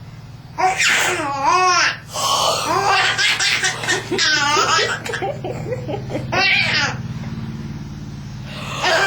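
A baby laughing hard in several bursts of pulsing giggles and belly laughs, over a steady low hum. The laughter is a reaction to an adult's yawn.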